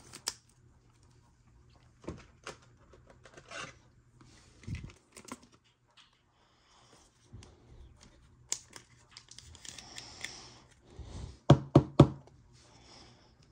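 Trading cards and their box packaging being handled on a table: scattered light clicks and taps and a stretch of rustling, then three quick, louder thumps near the end.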